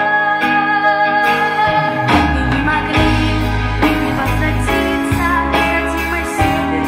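Slow song with girls' voices singing over an instrumental accompaniment; a low bass line comes in about two seconds in.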